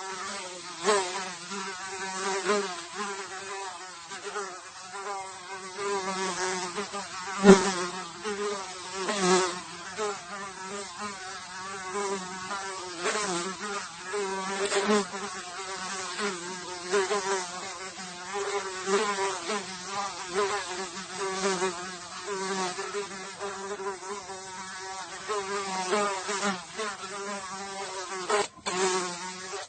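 A single fly buzzing in flight: a continuous wingbeat hum whose pitch wavers up and down and which swells louder and softer as the fly moves about. It cuts out for an instant once near the end.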